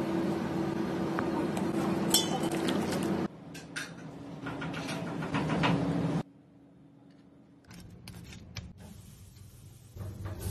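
Food being tossed by hand in a stainless steel mixing bowl over a steady kitchen hum, with a few sharp metallic clinks about two seconds in. After about three seconds it cuts to quieter handling with scattered clicks, then goes almost quiet before a short louder stretch near the end.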